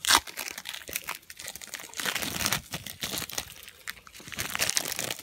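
Crinkling and rustling in three bursts as a slice of American cheese is handled and laid on a toasted burger bun.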